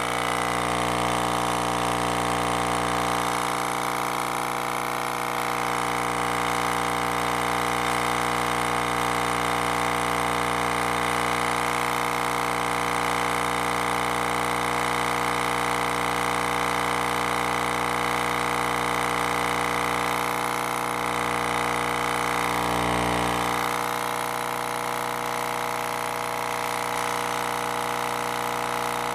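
Re Audio SX 12-inch subwoofer wired straight into a 120-volt wall outlet, giving a loud, steady buzzing hum at the mains frequency with many overtones. The driver is being run far past its rating, and its voice coil is overheating.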